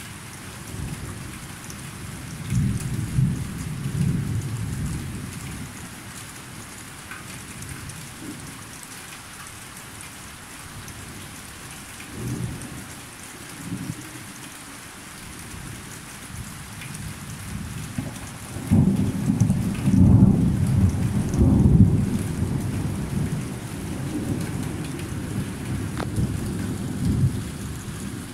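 Thunderstorm: steady rain falling, with rolls of thunder. There is a rumble a few seconds in, two short ones around the middle, and a long, louder rumble through the last third.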